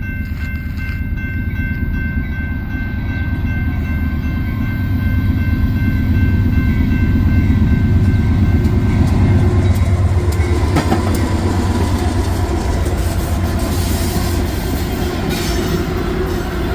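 Diesel freight train passing close by: the locomotives' engine rumble builds to its loudest around the middle, then the cars roll past with rising wheel-on-rail clatter.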